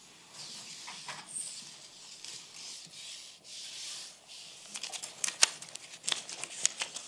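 Papers rustling and being handled close to a table microphone, followed from about five seconds in by a run of sharp clicks and knocks, the loudest about halfway through that run.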